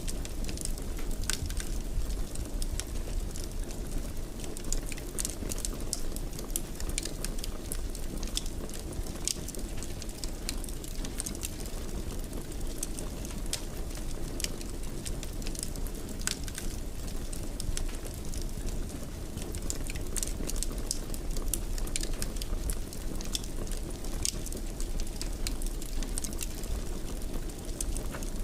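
Wood fire burning in a fireplace: a steady low rumble of the flames with frequent small crackles and pops.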